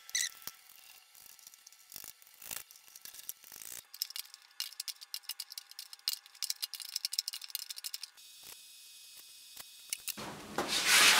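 Nuts being tightened onto bolts through a plastic barrel lid: a few scattered clicks and knocks, then about four seconds of rapid ratcheting clicks that stop suddenly about eight seconds in.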